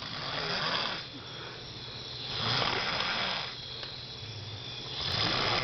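A sleeper snoring: three long, noisy breaths, one about every two and a half seconds.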